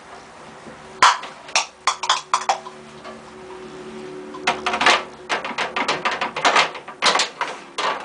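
Clothes being pushed by hand into the open drum of a tumble dryer: a quick run of short handling and knocking noises in two spells, starting about a second in and again about four and a half seconds in.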